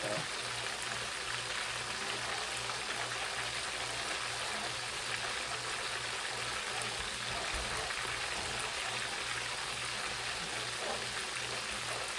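Thin chicken breast cutlets shallow-frying in oil, a steady sizzle.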